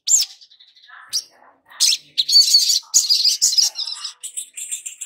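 Sunbird (sogon) chirping and twittering: a few sharp, high chirps, then a fast busy run of twitters about two seconds in, then short repeated notes near the end.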